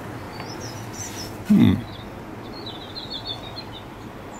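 Small birds chirping in the background, with a single short, low vocal sound of falling pitch, like a grunt, about a second and a half in.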